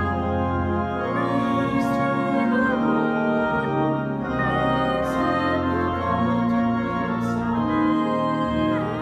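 Church organ playing slow music in held chords that change about every second.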